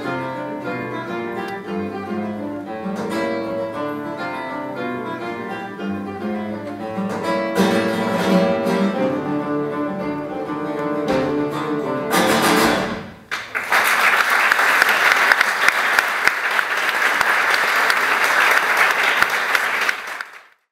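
Two acoustic guitars playing a duet of plucked notes and chords, closing on a final strummed chord about twelve seconds in. After a brief pause an audience applauds, and the applause cuts off suddenly near the end.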